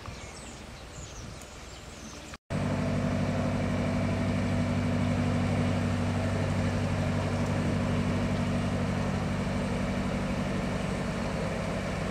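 Faint bird chirps over outdoor ambience. Then, after a brief dropout, a narrowboat's diesel engine runs steadily at low revs with an even, low hum as the boat comes out of the canal tunnel.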